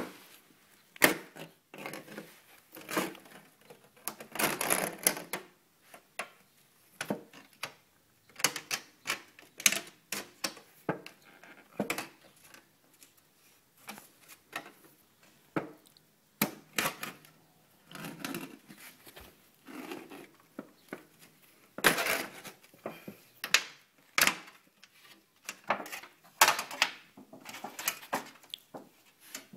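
Thin sheet-metal liner of a sealed ammunition crate being torn open and peeled back by hand: irregular crinkling, tearing and sharp metallic clicks, with short pauses between.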